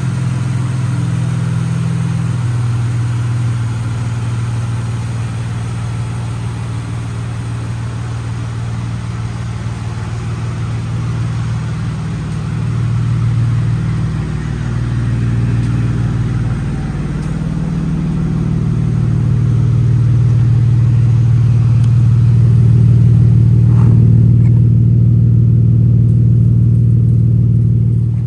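2013 Dodge Challenger's 3.6-litre Pentastar V6 engine running at a steady idle, with a couple of brief small rises in engine speed and a gradual swell louder in the second half.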